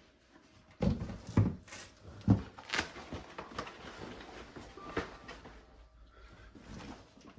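Parts of an animatronic Halloween figure being handled during assembly: a handful of scattered knocks and clicks over a low rustle of handling.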